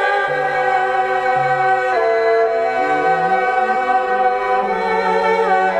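Background music: a slow melody of long held notes, changing about once a second, over sustained chords.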